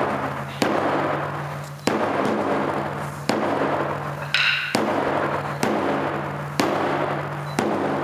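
Large barrel-bodied taiko drums (nagado-daiko) struck with wooden sticks in slow single beats, seven strokes spaced about a second apart, each ringing out with a deep low resonance until the next.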